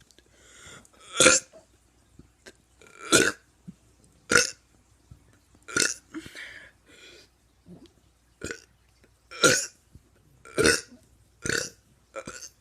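A teenager burping over and over: a string of about ten short, loud burps, roughly one every second or so, with brief pauses between.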